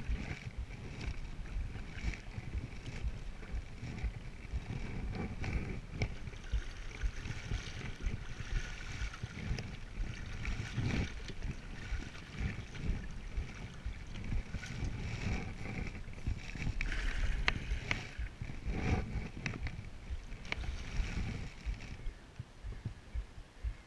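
Selway Fisher Wren canoe being paddled: the paddle dips and pulls through calm water and water washes along the hull, with some wind on the microphone. The paddling stops near the end as the canoe drifts on the current.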